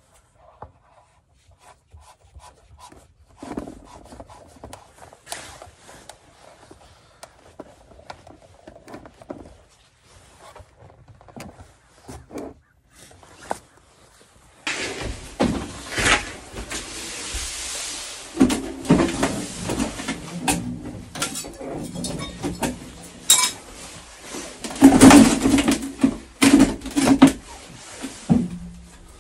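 Hand work on threaded plumbing fittings: scattered faint clicks and rubbing as a coupler is screwed on. About halfway through it turns to louder rustling, knocking and clattering, busiest near the end.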